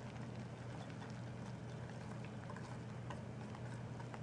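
Wire whisk stirring pancake batter in a glass bowl: faint, irregular clicks of the wires against the glass, over a low steady hum.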